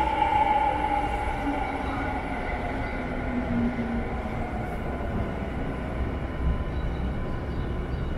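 Steady low rumble and hum of moving machinery in a subway station, with humming tones that fade over the first few seconds.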